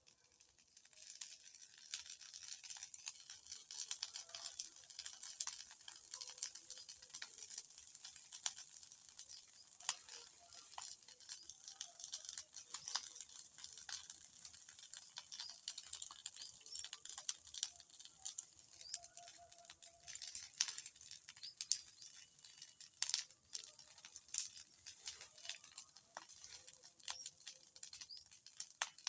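Bonfire burning with dense, steady crackling and sharp pops, with a hiss behind them.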